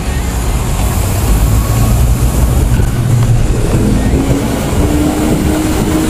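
City road traffic passing close by, led by the low, steady rumble of a heavy vehicle's engine, most likely a bus; a higher engine tone comes in about four seconds in.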